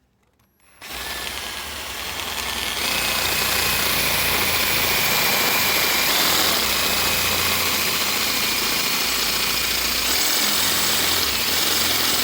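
Electric drill driving a cobalt bit into a snapped bolt in a small-block Chevy cylinder head. The drill starts about a second in, the cutting noise builds up after about three seconds, and then it runs on steadily.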